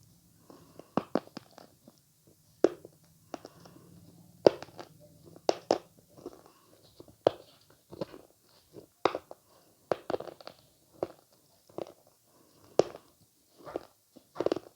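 Avocado being eaten close to the microphone: a run of sharp biting and chewing sounds, about one or two a second.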